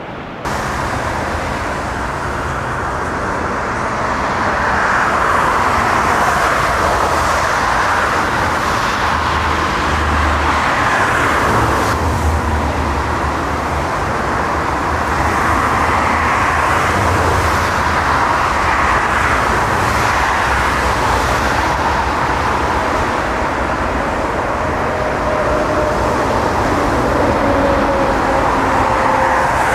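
Steady vehicle noise: a continuous roar with a low rumble, starting abruptly just after the beginning, with a faint falling whine near the end.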